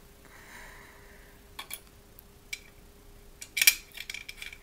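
Small metallic clicks and taps as the safety valve is screwed into the top of a Mamod TE1A toy steam traction engine's boiler, a few scattered at first and a louder cluster about three and a half seconds in. A faint steady hum runs underneath.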